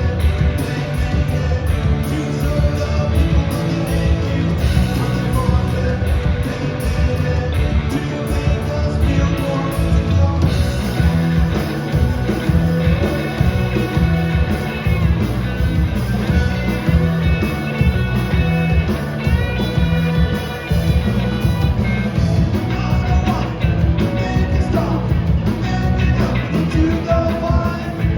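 Punk rock band playing live: guitars, bass and drums with singing.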